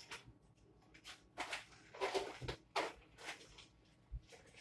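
Faint, scattered knocks and rustles of someone rummaging in a low kitchen cupboard, with short clatters a few times.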